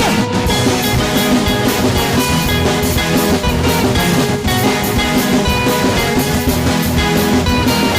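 Instrumental worship band music: drum kit keeping a steady beat under guitar and other instruments, with no singing.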